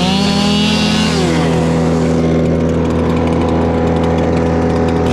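Chainsaw revving up to a high steady pitch, holding for about a second, then dropping back, and revving up again near the end, over another engine running steadily underneath.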